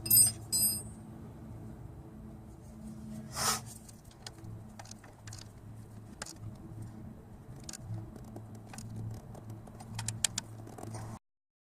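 Car engine running with a steady low hum, with metallic jingling clinks at the start, a short hiss-like burst about three and a half seconds in, and scattered light clicks.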